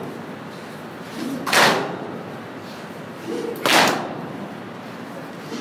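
Crowd of mourners doing Busheri matam, beating their chests together: two loud group slaps about two seconds apart, each just after a short call, with crowd noise between.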